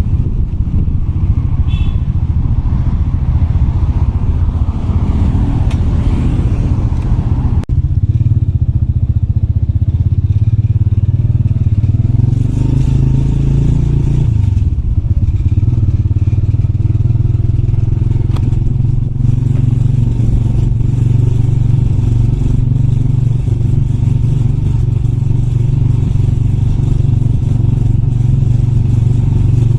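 Motorbike engine running steadily as it is ridden. The note drops briefly about eight seconds in and shifts in pitch around fourteen seconds.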